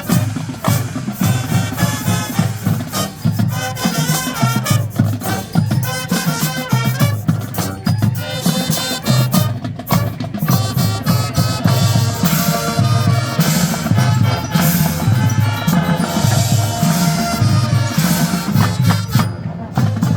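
High school marching band playing a pop arrangement, with a steady beat from the drums and percussion under the horns.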